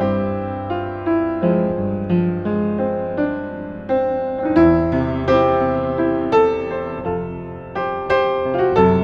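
A 1960s upright piano played slowly and gently, with chords and melody notes struck every half second or so, each ringing and dying away before the next.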